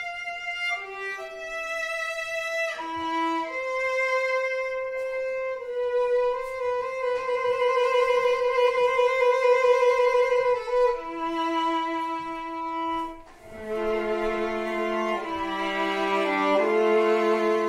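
Violin playing a slow melody of long held notes, some with vibrato. From about three-quarters of the way in, a lower second part sounds with it in two-note harmony.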